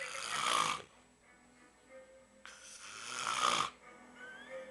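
A man snoring loudly, like a pig: two long snoring breaths, one at the start and one about two and a half seconds later, each lasting about a second.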